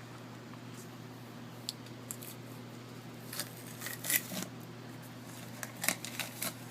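Frog masking tape being handled on a painted car wheel: scattered short crinkles and clicks in small clusters over a steady low hum.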